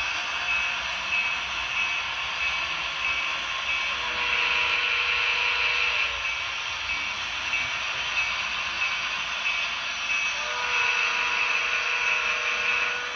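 Model train running on the layout's track: a steady whirring noise of motor and wheels. A steady tone joins it for about two seconds, four seconds in, and again near the end.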